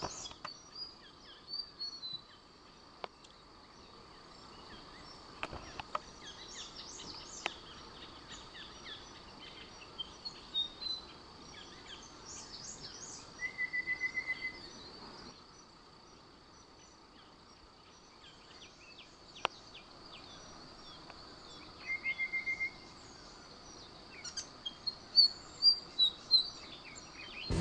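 Wild forest birds calling and chirping with scattered short whistles, over a steady high-pitched insect drone. A rapid, even trill of repeated notes comes twice, about halfway through and again later.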